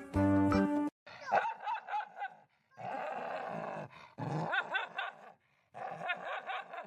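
A dog barking and growling in four short bouts, with rising and falling pitch. Piano music cuts off about a second in.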